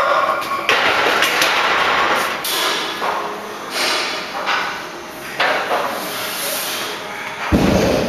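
Weight-room sounds of a loaded barbell with bumper plates: knocks and rattles of the bar and plates, then one heavy low thud near the end.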